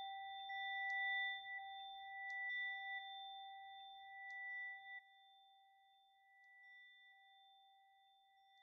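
Singing bowl ringing with a steady, sustained tone, with a few faint ticks. About five seconds in it drops suddenly to a much quieter level and keeps ringing faintly.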